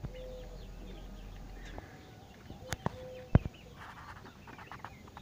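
Chickens clucking, with other short bird calls. There is one sharp knock a little over three seconds in.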